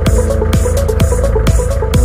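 Electronic dance music: a steady kick drum about twice a second under a short, repeating synth riff.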